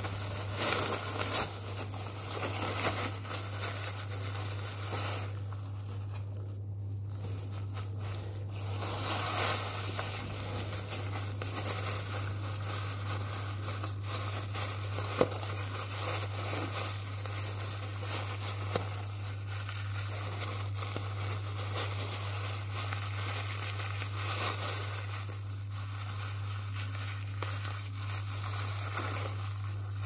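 Thin plastic bag crinkling and rustling as it is handled around a foot and a cotton sock is pulled on over it. A steady low hum runs underneath.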